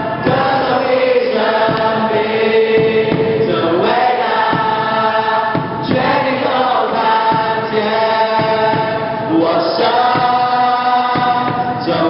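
A large crowd of young people singing a Christian worship song together, phrase after phrase with short breaks every couple of seconds.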